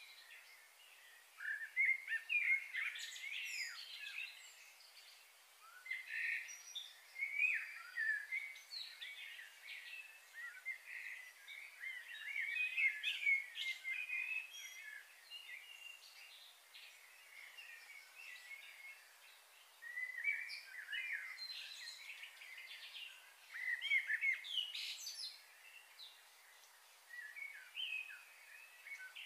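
Small birds chirping and twittering in repeated bursts of short, high calls.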